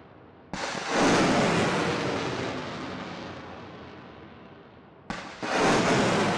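Two HIMARS rocket launches. Each is a sudden blast followed by a rushing roar that fades over several seconds. The first comes about half a second in, the second about five seconds in.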